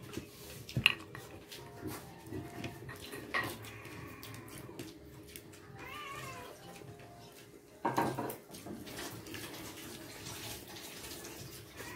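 Mealtime sounds at a table: scattered sharp clicks and knocks of dishes, the loudest about a second in and another cluster about eight seconds in. About six seconds in, a short high call rises and falls in pitch.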